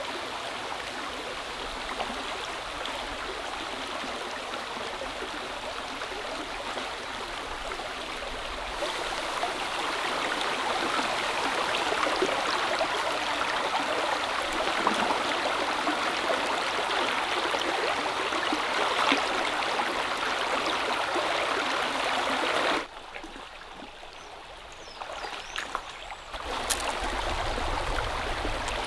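Stream water running, a steady rush and trickle that grows louder about a third of the way in, dips sharply for a few seconds near the end, then returns.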